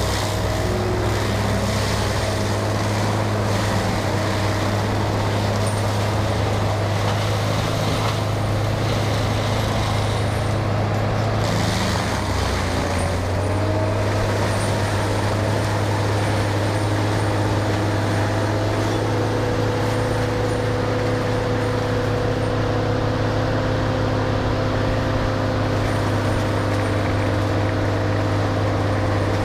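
Heavy machinery engine running steadily at constant speed during tree removal and root grinding, a steady low drone with a few higher tones that shift in pitch partway through.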